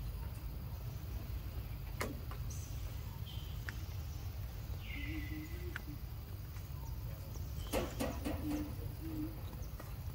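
Outdoor ambience: a steady low rumble with a few sharp clicks, and short low calls twice, a few seconds apart.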